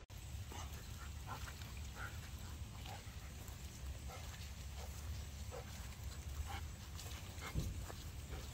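A dog on a lead sniffing and snuffling about on wet grass, short soft sounds scattered irregularly over a steady low rumble.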